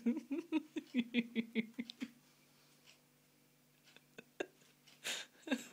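A woman's voice in a quick run of short, evenly spaced syllables, about six a second, on one pitch, stopping about two seconds in. Then a few small clicks and two short breaths near the end.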